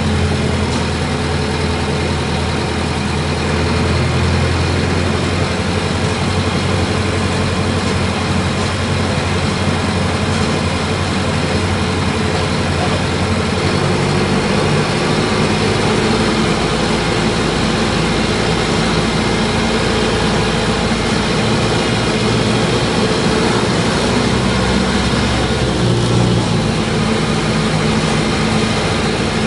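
Diesel engine of a Mercedes-Benz OF-1722 bus chassis running steadily at about idle, with its low hum shifting in pitch about halfway through.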